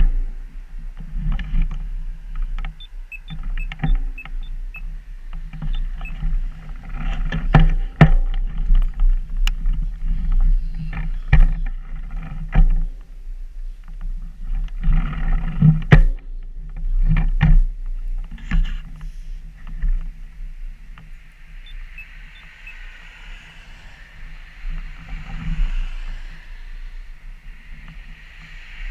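Low rumble on an action camera's microphone with scattered sharp clicks and knocks, typical of wind and handling on the camera mount; traffic noise swells near the end as cars approach the intersection.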